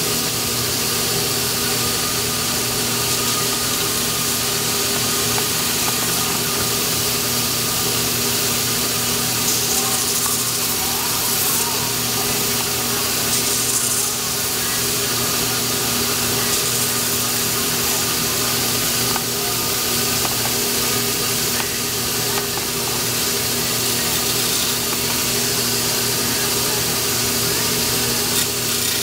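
A power grinding wheel running steadily and grinding the fiberglass on a longbow's take-down tenon, with a steady motor hum under the grinding hiss. The hiss briefly grows brighter several times.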